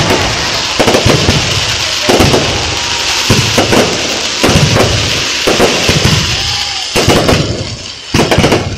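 Fireworks display: aerial shells and rising comets bursting with sharp bangs about once a second, over a continuous crackling hiss.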